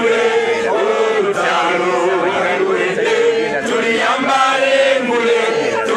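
Large crowd chanting in unison, many voices together without a break.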